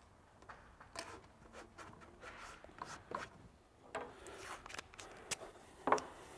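Blue painter's tape and poster-board strips being handled and pressed onto the model airplane's motor-mount lugs: scattered rubbing, rustling and light clicks, the loudest a little before the end.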